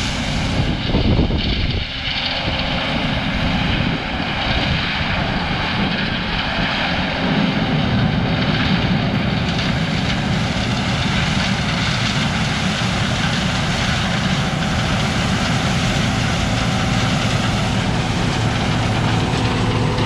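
A farm vehicle's engine running steadily under way, a constant low engine hum with no break.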